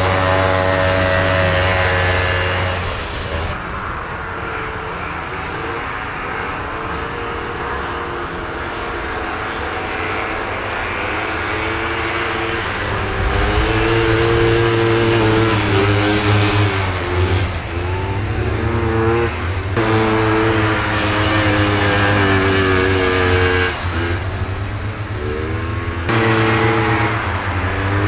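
Vintage two-stroke racing snowmobiles running hard past on an ice-and-snow track, their engines revving up and down as they pass. Several sleds are heard in turn, and the sound changes abruptly a few times.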